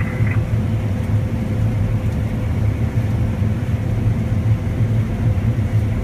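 John Deere S670 combine running steadily under load while harvesting wheat, heard from inside the cab: a loud, even low rumble with a faint steady whine.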